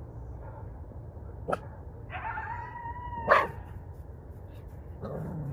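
A dog giving a drawn-out whining call at a steady pitch for about a second, then one sharp, loud bark. There is a shorter yelp before it and a lower call near the end.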